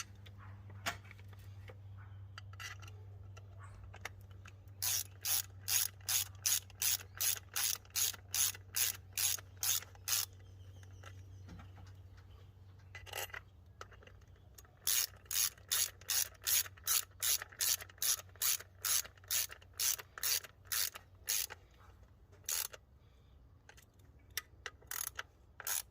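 Hand ratchet clicking in two long runs of quick strokes, about two to three clicks a second, with a few scattered clicks between, as throttle body screws are run down snug.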